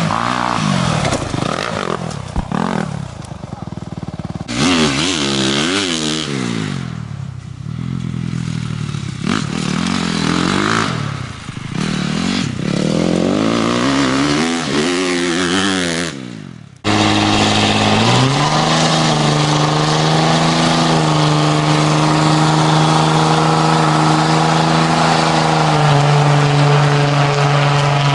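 Dirt bike engines revving hard, their pitch repeatedly climbing and dropping across several riding clips. After a sudden cut about 17 s in, a pickup truck's engine holds a steady high rev with a hiss of spinning tyres in a burnout, its pitch stepping up a little twice.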